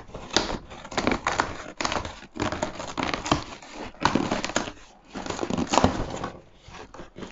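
Perforated tear strip on a cardboard mailer box being pulled off: a run of irregular ripping and crackling of corrugated cardboard, easing off near the end.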